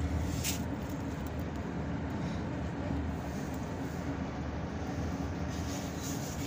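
Steady low rumble of road and engine noise inside the cabin of a moving car, with a light click about half a second in.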